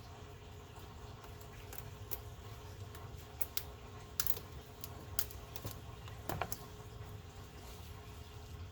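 Irregular light clicks and taps of hand tools working at small fasteners that are hard to remove, the loudest about four and six and a half seconds in.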